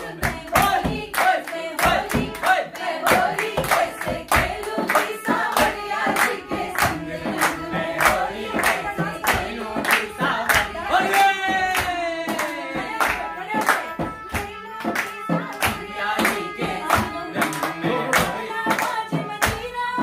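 Voices singing a traditional hori, a Holi folk song, in Hindi, with steady hand clapping on the beat, about two to three claps a second.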